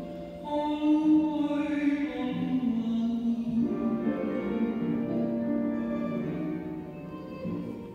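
Classical vocal music: singing voices holding long notes that move from pitch to pitch, fading down near the end.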